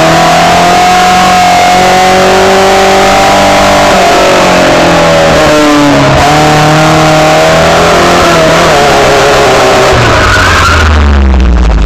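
Car engine running under load with tyres squealing through turns on a cone course, heard loud from inside the cabin. The squeal wavers up and down in pitch. A deep rumble comes in near the end.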